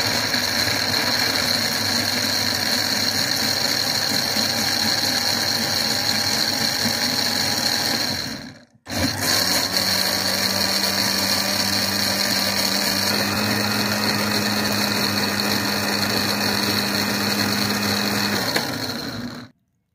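Electric blender motor running steadily at full speed, pureeing pomegranate seeds into juice in a glass jar. It drops out for a moment about halfway through, starts again, and cuts off just before the end.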